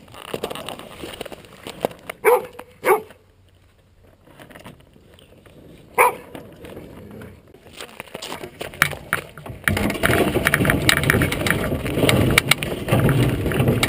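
A dog barks a few times, short and sharp. About ten seconds in, a steady rattling rumble starts as the DN iceboat's runners scrape and chatter over the ice, heard from a camera on the boat.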